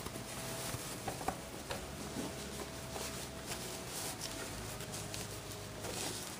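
Fabric rustling and rubbing as a sewn, batting-lined cloth basket is turned right side out by hand, with a few soft clicks.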